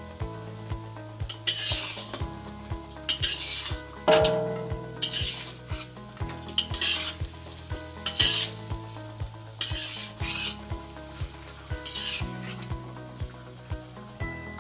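A spatula stirring and scraping pig trotters around a hot wok, about nine short strokes a second or two apart, with the meat sizzling.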